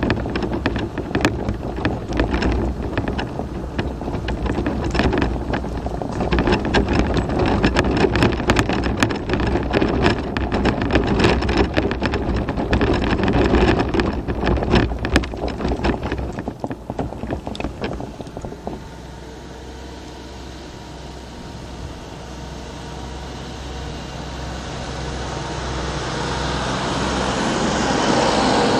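Off-road mobility scooter crunching and rattling over a rough chalk-and-flint track for about 18 seconds, with many small clicks of stones under the tyres. It then stops, and a farm tractor's engine approaches, rising steadily and loudest at the end.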